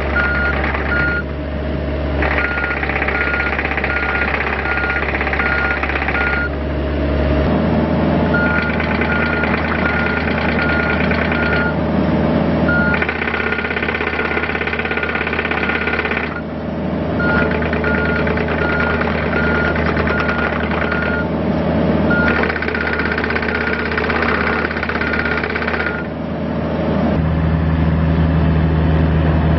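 John Deere 50D mini excavator's diesel engine running under load while its travel alarm beeps about twice a second. The beeping comes in runs of several seconds with short breaks, as the rubber tracks are driven. The engine note shifts about seven seconds in and again near the end.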